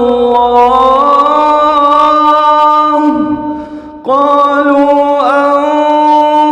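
A man's voice reciting the Quran in melodic tarteel, holding long drawn-out notes, with a short breath pause about three seconds in before the voice resumes.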